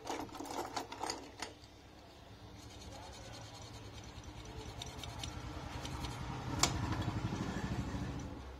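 Toothbrush scrubbing a phone motherboard, cleaning flux and solder off the pads where an IC was removed: a fast rhythmic scratching that builds and is loudest near the end. A few clicks come near the start and one sharp click a little later.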